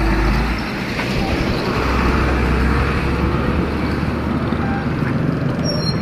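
Busy street noise: a steady wash of road traffic with a low rumble, and faint voices in the background.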